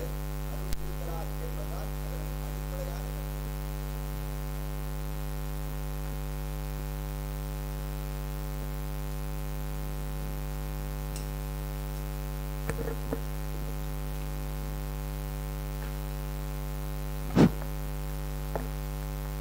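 Steady electrical mains hum, with a few knocks and bumps from the microphone stand being handled and adjusted. The loudest bump comes about seventeen seconds in.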